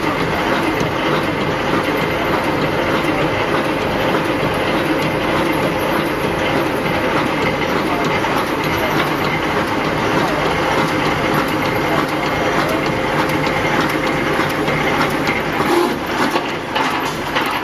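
Automatic welded wire mesh roll machine running as it welds thin wire into mesh: a steady, rapid mechanical clatter of repeated knocks over a constant machine noise.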